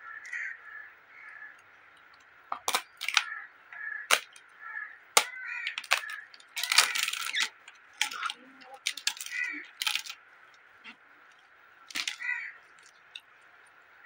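Close-miked eating sounds: a crisp papad snapping and crunching in a string of sharp cracks at irregular intervals, along with wet sounds of rice and dal being mixed by hand and chewed.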